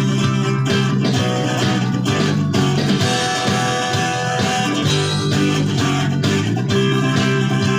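Guitar playing sustained chords in a steady strummed rhythm, with no voice.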